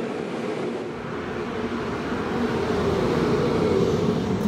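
ÖBB Nightjet sleeper train pulling into the platform, its electric locomotive passing close by: a rumble of wheels and running gear that builds to its loudest about four seconds in.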